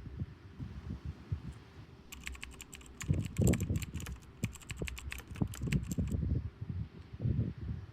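A quick run of sharp clicks, like typing, for about four seconds in the middle, over low, uneven rumbling.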